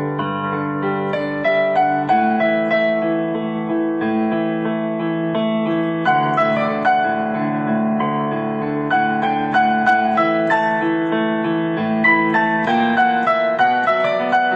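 Solo piano playing a gentle melody over sustained chords.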